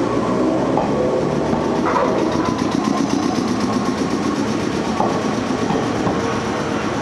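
Enshu Railway 30-series electric train moving slowly past at close range: a steady hum from its motors and electrical equipment, with a few separate clacks from the wheels.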